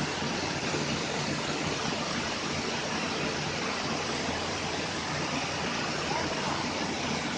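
Machinery of a small wheat flour milling plant running: an even, steady rushing noise with no distinct rhythm or knocks.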